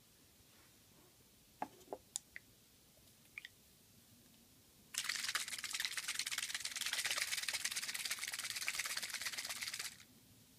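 Applicator tip of a bottle of racket stencil ink dabbed rapidly on badminton racket strings to fill in a stencilled logo: a dense run of quick light taps for about five seconds, stopping abruptly. A few sharp clicks come before it.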